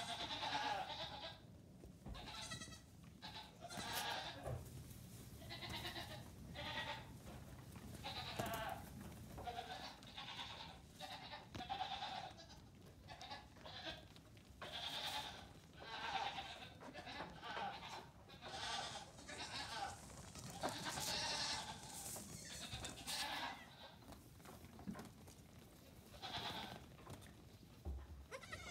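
Nigerian Dwarf goat kids, from a few days to two weeks old, bleating over and over: short, high calls following one another about every second, sometimes overlapping.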